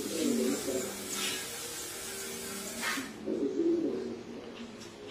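Puppies growling in play while they wrestle, in two short bouts, one at the start and one about three seconds in, with a few brief scuffs between.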